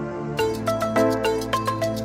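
The song's instrumental intro. Soft held chords give way, about a third of a second in, to a quicker run of short notes over a steady bass note.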